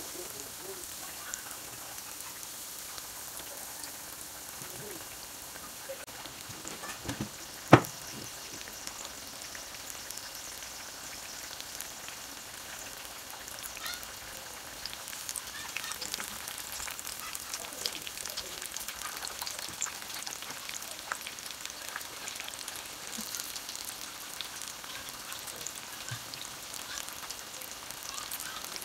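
Breadcrumb-coated fish pieces deep-frying in hot oil: a steady sizzle with crackles, getting busier in the second half. One sharp click about eight seconds in.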